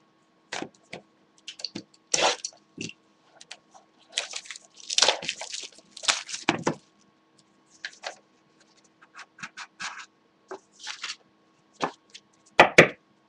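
Trading-card box and foil card pack being opened by hand: irregular bursts of crinkling and tearing wrapper, loudest near the end as the pack is torn open.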